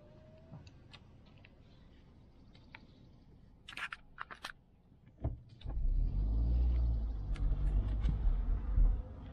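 Inside the cabin of a Hyundai i20 driving on a dirt track: quiet at first apart from a few sharp clicks and rattles, then, after a thump a little past halfway, a loud low rumble of the car moving over the rough track.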